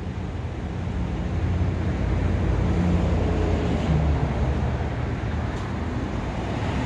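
Low, steady rumble of a motor vehicle engine or nearby traffic, swelling over the first couple of seconds and then easing slightly.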